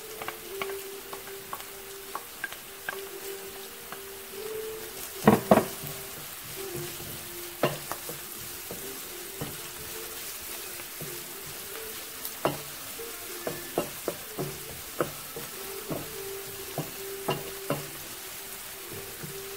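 Sliced onions and minced garlic sizzling in oil in a nonstick frying pan, stirred with a wooden slotted spatula that scrapes and clicks against the pan. Two louder knocks of the spatula come about five seconds in.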